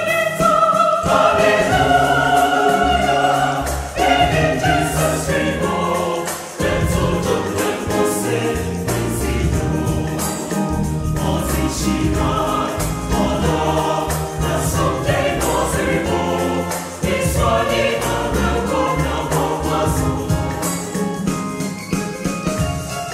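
Mixed SATB choir singing an upbeat Ghanaian gospel Christmas carol in Fante, in close harmony, over a keyboard with a steady bass line. Light regular percussive ticks and hand claps run under the voices.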